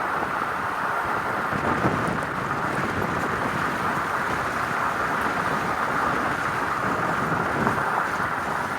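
Norfolk Southern freight train rolling past at a grade crossing: a steady, loud rush of steel wheels on the rails.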